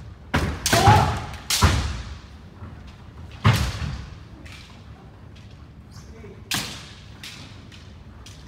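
Kendo sparring: bamboo shinai strikes on armour and stamping feet on a wooden floor, with kiai shouts. It opens with a quick run of hits and shouts in the first two seconds, followed by single strikes about three and a half and six and a half seconds in, all echoing around a large hall.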